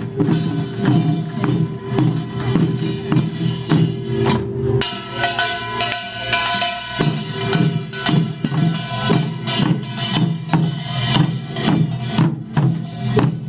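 Pungmul troupe playing Korean farmers' percussion music: drums beaten in a fast, steady rhythm with metal gongs ringing over them. The pattern shifts about five seconds in and again about two seconds later.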